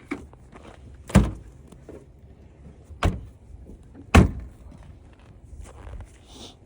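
Car trunk being tested with a newly programmed key: three sharp thumps from the trunk latch and lid, about a second in, at about three seconds and just after four seconds.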